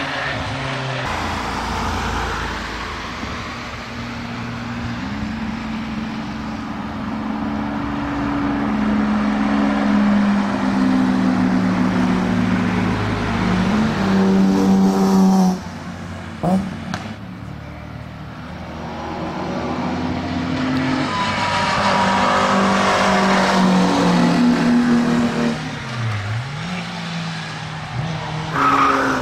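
Sports cars driving hard past a trackside microphone one after another: a Nissan 370Z Nismo, a Porsche 911 GT2 RS and a BMW E46 coupe. Their engine notes rise and fall through gear changes. The sound cuts off abruptly about halfway through, and near the end the engine drops sharply in pitch and climbs back up.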